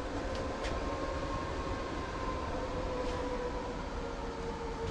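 Steady mechanical hum with a held, even tone over a low rumble, and a few faint ticks.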